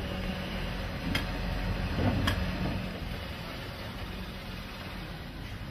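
Garbage truck running steadily with a low, even hum, with two sharp clicks about one and two seconds in.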